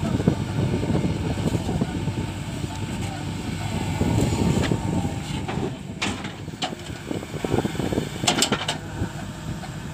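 JCB 3DX backhoe loader's diesel engine running under load as the backhoe digs soil and swings to dump it into a tipper lorry. A few sharp knocks come in the second half.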